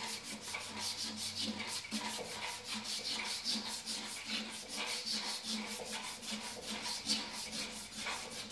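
Emery paper rubbed quickly back and forth around a steel fan shaft, a scraping of about five strokes a second, cleaning up the shaft so the sheave can be driven off.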